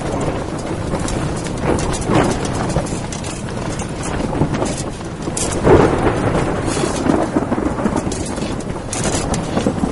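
Strong mountain wind blowing in gusts, a rough rumbling rush that swells and eases, with scattered crackling.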